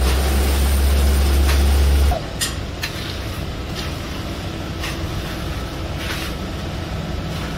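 Concrete pump machinery running: a loud low rumble for about the first two seconds that cuts off suddenly, then a steadier running noise with a few short knocks.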